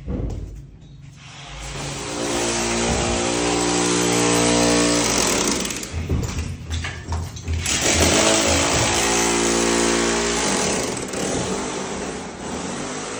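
A motor engine running steadily with a noisy rush. It breaks up with knocks for a couple of seconds midway, then steadies again.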